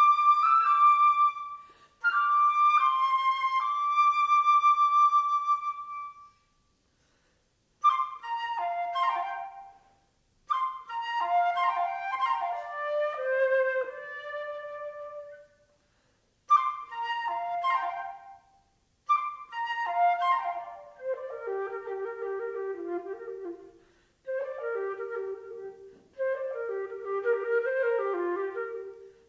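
Solo flute playing unaccompanied: long held high notes, then quick falling runs in short phrases broken by pauses, settling into rapidly alternating low notes for the last several seconds.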